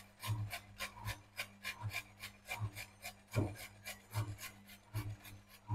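A carrot being grated by hand on a handheld grater: a steady run of short rasping strokes, about four a second.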